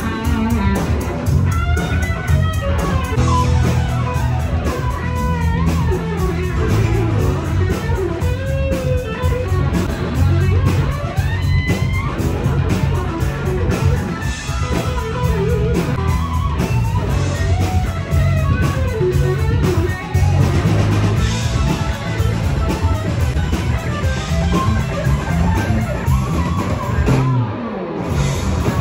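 Rock band playing live: a lead electric guitar solos with bent notes over bass guitar and drums. The music drops out briefly near the end.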